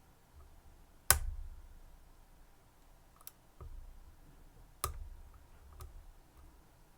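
Sharp clicks and light knocks from handling a lock cylinder and lock-picking tools: two loud clicks, about a second in and near five seconds in, each with a short low thud, and a few fainter ticks between them.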